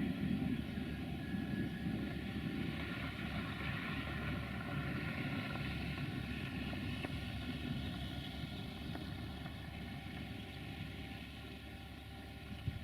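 A train running past and moving away, its steady rumble slowly fading.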